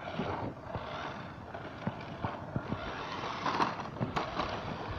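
Toy RC Jeep driving on a road, with its wheels and plastic body rattling over the surface in a noisy haze full of scattered clicks and knocks.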